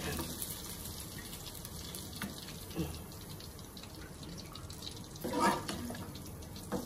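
Corn kernels sizzling and crackling in hot oil in a frying pan as a slotted metal spoon scoops them out, with a louder clatter of the spoon about five seconds in.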